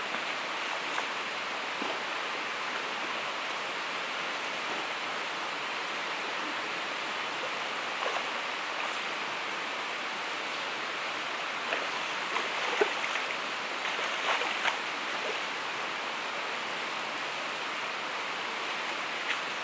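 River water running steadily over rocks and shallows. A few short sharp sounds stand out about twelve to fifteen seconds in.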